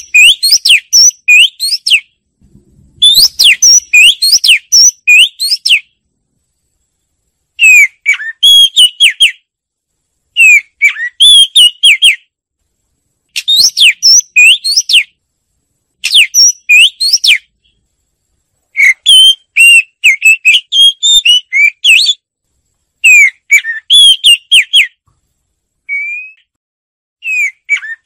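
Oriental magpie-robin singing: a run of loud phrases of clear, quick whistled notes sweeping up and down, each phrase a second or two long with short pauses between.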